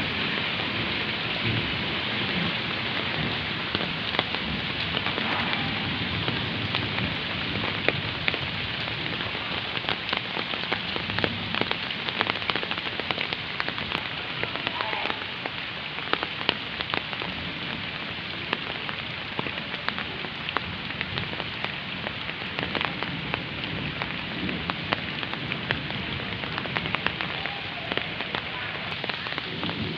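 Heavy rain falling steadily, a dense hiss dotted with many sharp drop hits.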